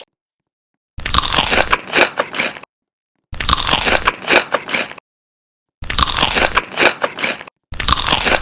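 Crunchy food being bitten and chewed close to the microphone: four short spells of loud, crackly crunching, each cut off into dead silence before the next.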